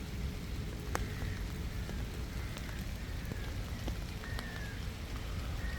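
Outdoor ambience on a handheld microphone: a steady rain-like crackling hiss over a low rumble, with scattered light clicks, one of them about a second in.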